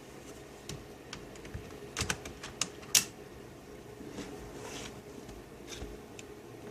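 Scattered clicks and taps of a plastic laptop being handled, with a quick run of clicks about two seconds in and the sharpest click just before three seconds.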